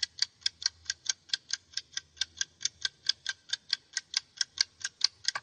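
Ticking sound effect: fast, even ticks, about five a second.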